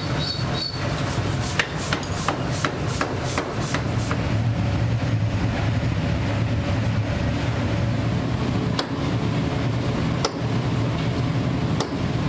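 Steady low rumble of a coal forge fire under air blast. Over it come sharp metallic knocks like hammer blows: a quick run of them about a second or two in, then single knocks about a second and a half apart.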